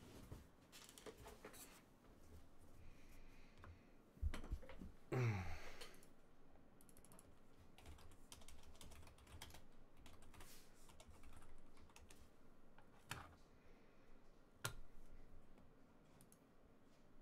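Faint typing on a computer keyboard, scattered key clicks. A louder knock comes about four seconds in, followed by a short sound falling in pitch.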